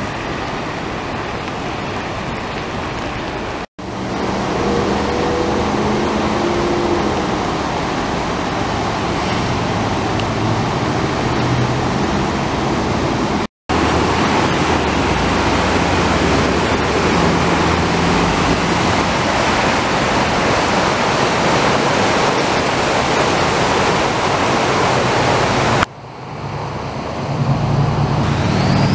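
Flash-flood water rushing down a swollen arroyo channel, a loud steady roar of turbulent muddy water, cut off twice briefly by edits. Near the end a vehicle's engine comes up over the water noise.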